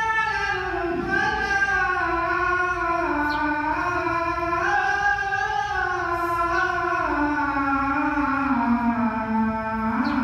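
Music: one slow melody line of long held notes that glide from pitch to pitch, sinking lower near the end.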